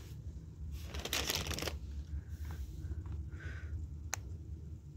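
Clear plastic bags of dog treats crinkling and rustling as they are handled and picked up, loudest about a second in, with a short click near the end.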